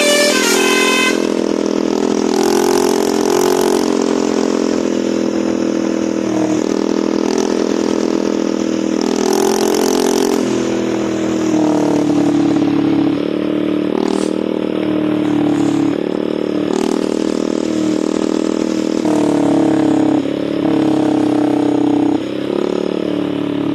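Bus telolet basuri musical air horn sounding long held notes that change pitch in steps, a few higher notes in the first second and lower, buzzy notes after.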